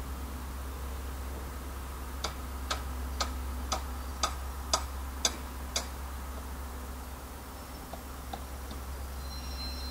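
Pair of Class 73/9 electro-diesel locomotives moving slowly, a steady low drone of their engines. A run of eight sharp, evenly spaced clicks about two a second starts about two seconds in and stops about four seconds later.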